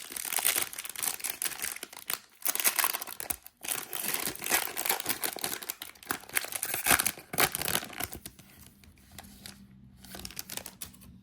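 A trading-card pack wrapper being torn open and crinkled: a run of rustling and tearing that dies down about eight seconds in.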